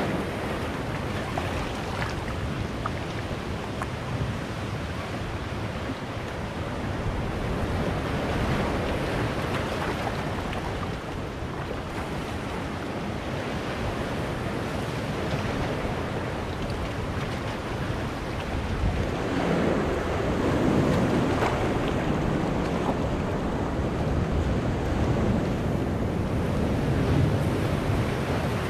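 Sea waves breaking and washing in among boulders on a rocky shore: a continuous surf wash that rises and falls in surges, loudest about two-thirds of the way through.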